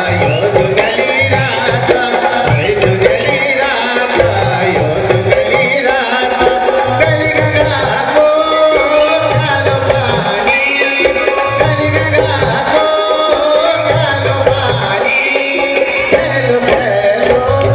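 Uttarakhandi folk song music (nyoli geet), with a steady hand-drum beat under a melody.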